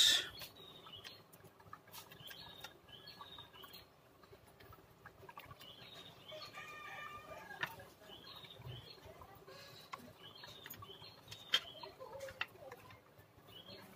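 Faint bird chirps: many short, high calls, with a longer call about six to seven seconds in. A few light clicks come from the charger cable and plug being handled.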